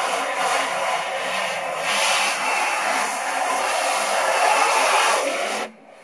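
A close-range water jet from a hose spray nozzle hissing steadily against a silk screen, washing out the unhardened photo emulsion to develop the stencil; the spray cuts off suddenly near the end.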